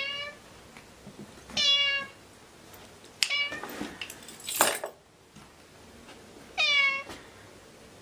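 Ginger tabby cat meowing: four short, high calls spaced about one to three seconds apart, each sliding slightly down in pitch, with a short, harsher, noisier sound about halfway through.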